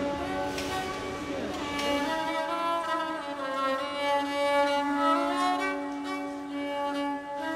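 Background music of slow bowed strings with long held notes that slide gently in pitch.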